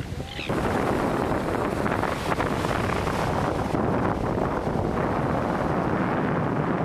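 Wind buffeting the microphone, a loud rough rumble that rises about half a second in, with the sea washing on the shore behind it.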